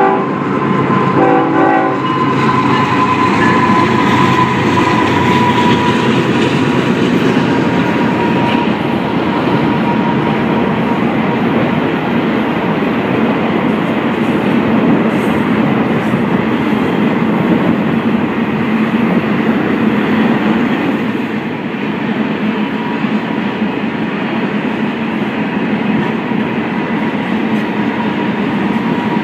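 Union Pacific diesel locomotives and a long double-stack container freight train rolling past, a steady rumble of wheels on rail. A brief horn sounds about a second in.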